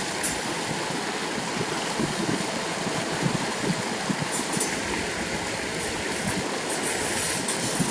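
Steady rushing of river water, with a few brief high-pitched chirps.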